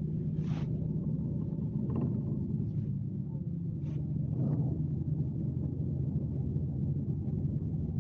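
Scania K370C coach's 13-litre six-cylinder engine running steadily under way, heard from inside the passenger cabin as a low, even drone whose pitch dips slightly about three seconds in. A few faint knocks or rattles sound over it.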